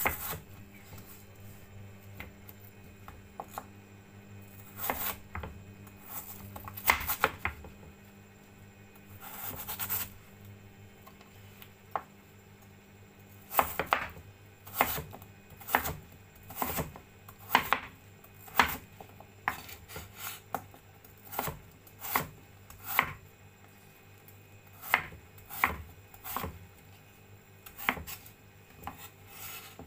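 Cleaver chopping peeled potatoes on a wooden cutting board: a few scattered knocks of the blade on the board at first, then steady chops about one a second from about halfway through as the slices are diced into small cubes.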